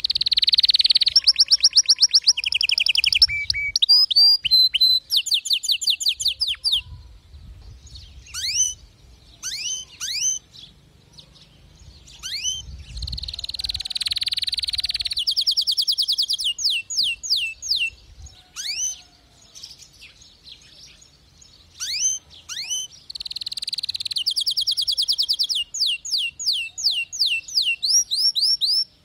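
Domestic canary singing: long, fast trills of rapidly repeated notes, with single sharp, sweeping chirps in the pauses between the trills.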